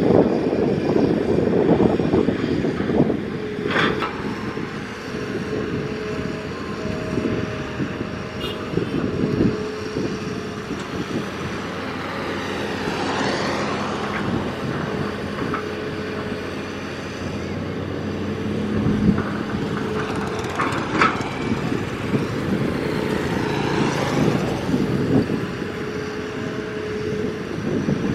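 Hitachi X210 hydraulic excavator running steadily under load while it digs and loads soil, with a few sharp knocks along the way.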